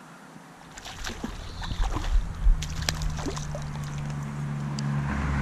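Smallmouth bass splashing at the surface and water sloshing as the fish is hand-lined in, with irregular sharp splashes and clicks. From about two seconds in, a low steady motor-vehicle engine hum grows steadily louder as it approaches.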